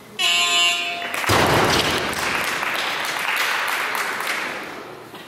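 Weightlifting competition down-signal buzzer sounding for about a second, telling the lifter he may lower the bar. Then the loaded barbell with its rubber bumper plates lands on the platform with a thud, and the hall applauds, fading out over about three seconds.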